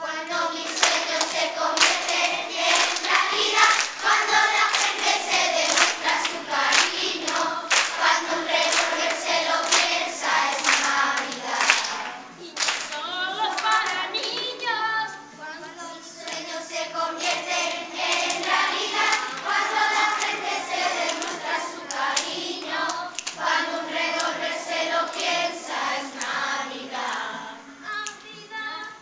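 A group of primary-school children singing a Christmas song together, with hand claps keeping the beat.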